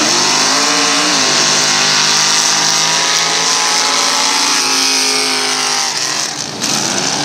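Mud-racing truck engines running at high revs as they power through a mud pit. The pitch climbs in the first second, holds high, then drops off briefly about six and a half seconds in.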